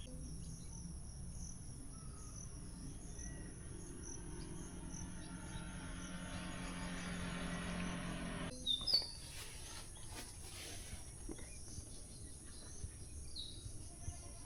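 Insects calling in a steady, high-pitched drone with pulsing chirps. A low hum builds through the first half and cuts off suddenly. Short bird chirps follow, about halfway and again near the end.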